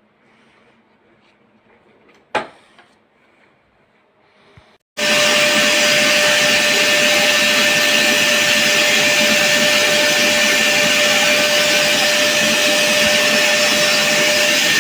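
Vacuum cleaner motor starting abruptly about five seconds in and then running steadily with a constant whine. Before it starts there is quiet room sound with one sharp click about two seconds in.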